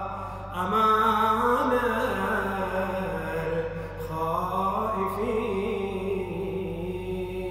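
A man's solo voice chanting an Arabic Ramadan supplication in a slow, melodic recitation style, drawing out long held notes, with a new phrase starting about half a second in.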